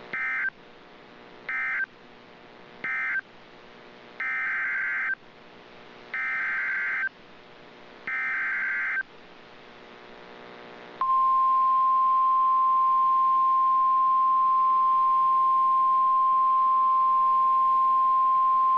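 Emergency Alert System data bursts: three short buzzy end-of-message bursts, then three longer header bursts announcing the next alert. About eleven seconds in comes the steady single-pitch NOAA Weather Radio warning alarm tone, which holds to the end and is louder than the bursts.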